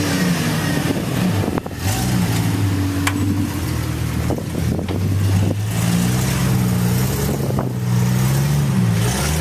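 Off-road vehicle's engine running at low revs, its pitch rising and falling as it works over rocks, with a few sharp knocks scattered through.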